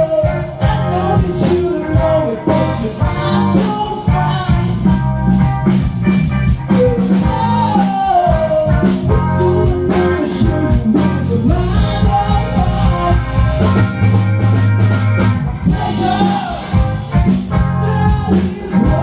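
A song with a singing lead, heavy bass and a steady drum beat, played loud through a PA sound system.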